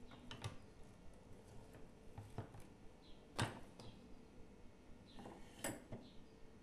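Scattered light clicks and taps of metal parts being handled on a hand-operated button-badge press with a 44 mm die, the sharpest click about three and a half seconds in.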